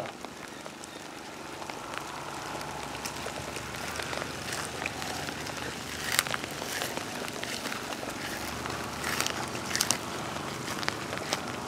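Light rain falling on dry leaves and brush: a soft steady patter with scattered sharp drop ticks.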